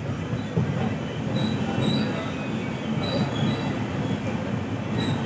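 Passenger train rolling through a station, heard from inside the coach: a steady low rumble of the wheels on the track with several short, high-pitched wheel squeals.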